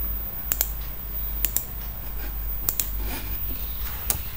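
A few sharp clicks of a computer mouse button, mostly in quick press-and-release pairs, over a steady low hum.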